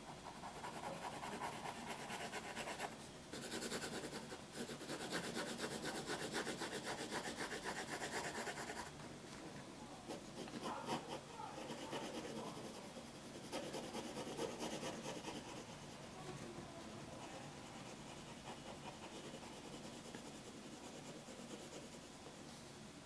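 Pencil shading on paper: quick back-and-forth scratching strokes of graphite hatching in dark areas. The strokes are densest and loudest from about three to nine seconds in, then come lighter and more scattered.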